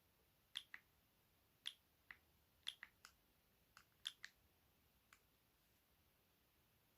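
Keypad buttons on a BenQ Siemens AL21 mobile phone being pressed while stepping through its menus: about a dozen faint, sharp clicks, often in quick pairs, over the first five seconds.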